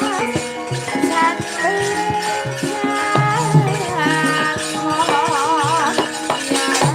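Javanese gamelan music accompanying a wayang kulit show: held metallophone and gong-like notes under a wavering melody line, with frequent short struck strokes of drum and rattling clatter.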